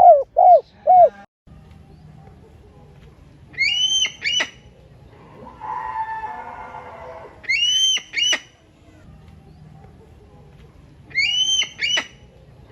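Birds calling: a few loud, low cooing notes at the start, then a high call, one arched note followed by a couple of short sharp notes, repeated three times about every four seconds.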